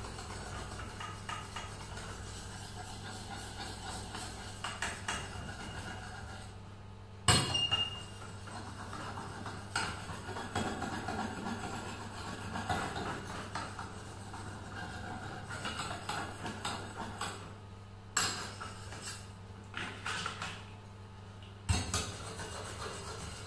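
Steel rubber tapping knife blade scraped and rubbed back and forth over a gritty cloth-covered surface, with small clicks throughout. A sharp metallic clink with a brief ring comes about seven seconds in, and another knock near the end, over a steady low hum.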